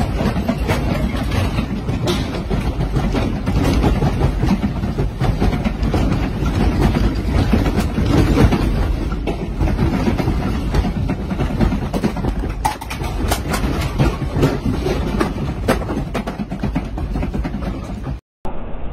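A continuous low rumble with dense rattling and clattering as an earthquake shakes the room, its furniture and fittings. It cuts off suddenly near the end.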